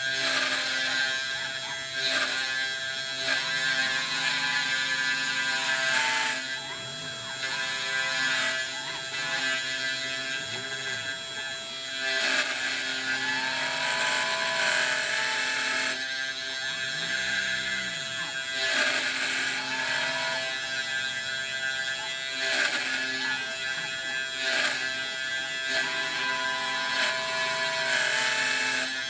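Eleksmill desktop CNC mill cutting a square pocket in particle board: the spindle runs with a steady whine, with repeated bursts of cutting noise and tones that rise and fall as the machine moves.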